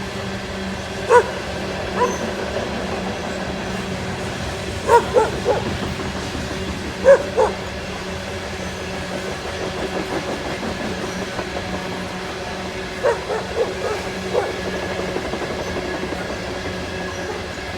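Loaded coal train rolling steadily past with a constant hum, while a dog barks in short groups of one to three barks, the barks standing out as the loudest sounds.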